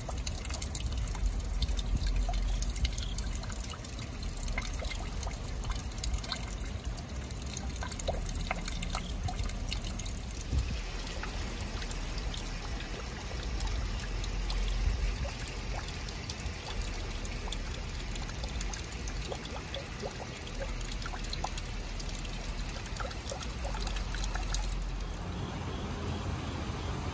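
Water from a statue fountain falling into a shallow stone-edged pool, a steady trickling splash.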